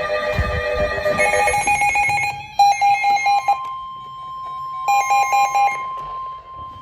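Weather radio receivers sounding a severe thunderstorm warning alert. Electronic alarms beep in fast pulses in short bursts, and about halfway through a single steady tone starts and holds: the NOAA Weather Radio 1050 Hz warning alarm tone that comes before the spoken warning.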